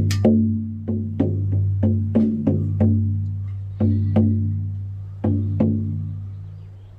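A 20-inch horse-skin shamanic frame drum struck with a firm beater: a quick run of strokes at about three a second, then a pause and two pairs of strokes. Each stroke leaves a low, ringing tone that carries between hits and fades away near the end.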